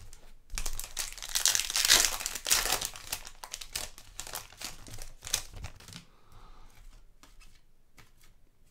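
Crinkling and rustling of plastic card packaging being handled, busiest in the first half, then a few faint clicks of handling.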